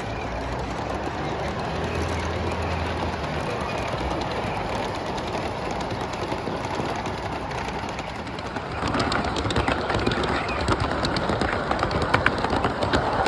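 Large-scale model freight train's cars rolling along the track, a steady rolling sound. About nine seconds in it grows louder, with a rapid run of wheel clicks as the cars pass right by.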